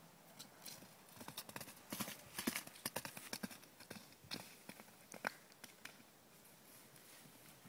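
Welsh cob foal's hooves galloping on wet turf: a quick, irregular run of hoofbeats, thickest in the middle and dying away about five seconds in as she moves off.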